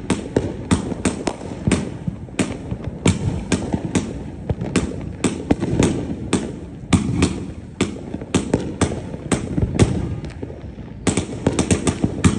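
Fireworks going off: sharp cracks and pops in quick, irregular succession, several a second, over a continuous rushing noise. A short lull comes near the end, then a fresh cluster of cracks.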